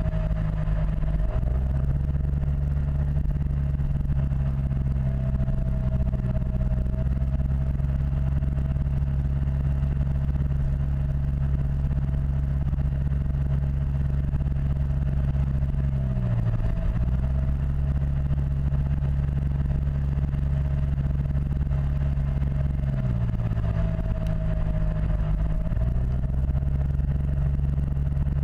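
Yamaha T-Max XP500 maxi-scooter's parallel-twin engine running at steady revs under way, over a heavy low rumble. The engine note dips briefly and recovers about a second in, about halfway through, and twice near the end.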